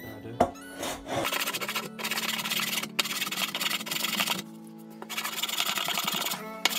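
Small hand plane pushed along the edge of an oak countertop board: three long cutting strokes of about a second and a half each, with a knock just before the first. Background music plays underneath.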